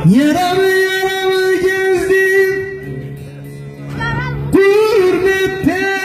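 Male voice singing a bozlak, the long free-rhythm Turkish folk lament: it leaps up to a long held high note decorated with wavering turns, falls quieter in the middle, then swells up to two more held notes near the end. A steady held chord sounds beneath the voice.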